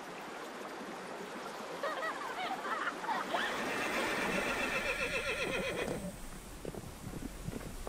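Water rushing along a channel, then a horse whinnying with a long quavering call from about four to six seconds in, followed by soft hoofbeats of horses running over grass.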